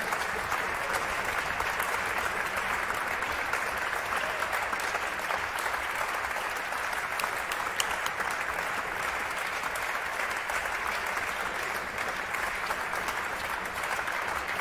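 Audience applause in a concert hall: many hands clapping in a steady, sustained wash, with no music.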